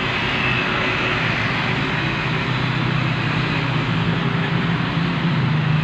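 Panasonic 1.5 horsepower air-conditioner outdoor unit running: a steady, even whooshing noise over a low hum. The unit is short of refrigerant gas, which the owner puts down to a leak in the piping.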